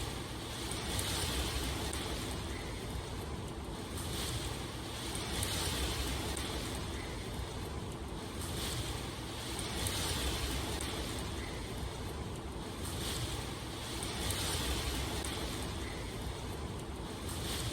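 Steady rain falling, an even hiss that swells and eases about every two seconds.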